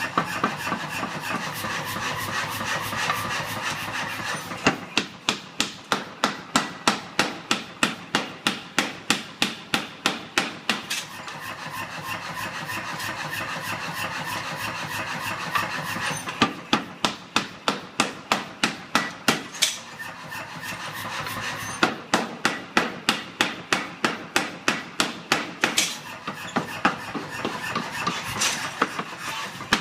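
Mechanical power hammer striking a 2-inch round bar end-on to upset it. The blows come steadily at about three a second, in runs of heavy strikes with lighter, softer stretches of blows between.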